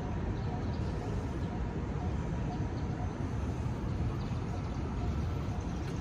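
Steady low rumble of a mountain bike being ridden over dry grass and dirt, mostly wind buffeting the phone's microphone, with the knobby tyres rolling.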